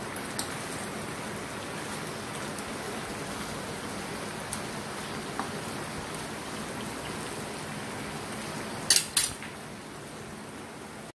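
Steady sizzling of chicken, bacon and vegetables frying in a pan. A utensil clicks against the pan a few times, with two sharp knocks about nine seconds in.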